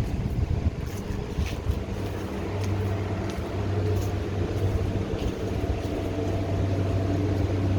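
A generator engine running with a steady low hum, several level tones above it swelling and fading slightly.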